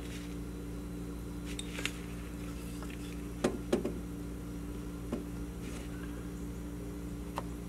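Carving knife taking small stop cuts and chips in a basswood figure: a few short, faint clicks and scrapes spaced irregularly, over a steady low electrical hum.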